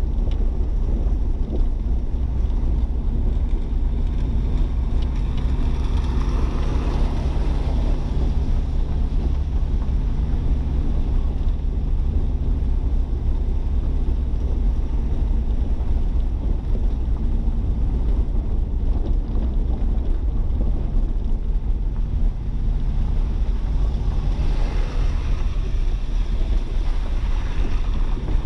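Car driving on a wet road, heard from inside the cabin: a steady low rumble of road noise with a low engine hum. A brighter hiss swells up briefly twice, about six seconds in and again near the end.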